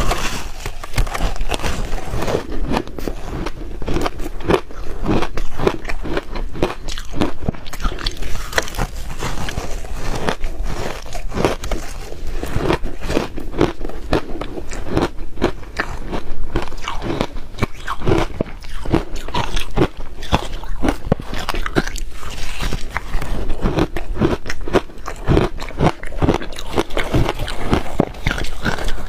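Close-miked biting and chewing of chunks of crushed ice: a dense, unbroken run of sharp crunches and cracks, with bites and grinding chews following one another throughout.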